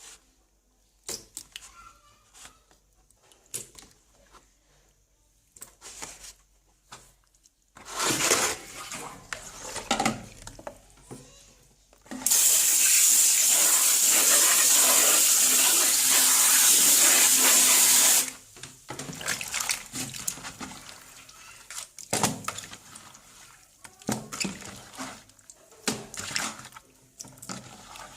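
Water tap running into a sink, a loud steady gush for about six seconds that shuts off suddenly, with irregular splashing just before it. Light knocks and clatter come before and after.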